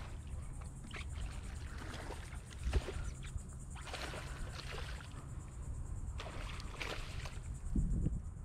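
Hooked snook thrashing at the water surface beside the boat, a run of short, sharp splashes, with wind rumbling on the microphone. Two dull low thumps, about three seconds in and near the end, are the loudest moments.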